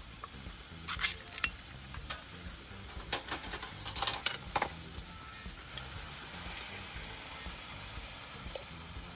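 Chive and vegetable stir-fry sizzling steadily in a frying pan on a portable gas stove. In the first half there is a run of sharp metal clinks and scrapes as canned mackerel is added and stirred in.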